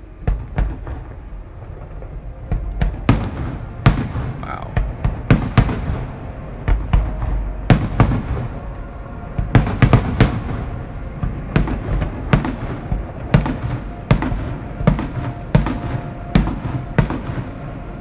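Aerial fireworks shells bursting in a long run of sharp bangs, a few at first and then thick and fast from about three seconds in, each dying away in a short rumbling echo.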